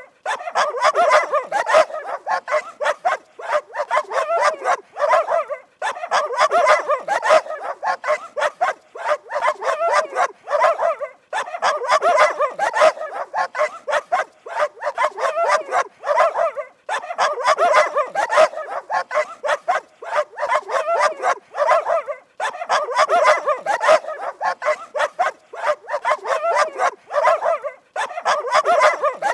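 Dog barking rapidly and repeatedly, in runs of several seconds broken by short pauses about every five to six seconds.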